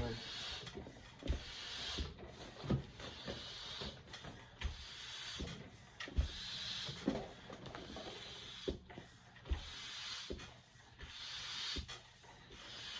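Irregular rubbing and scraping strokes with scattered light knocks, from hands working a fat-tire bike's rubber inner tube.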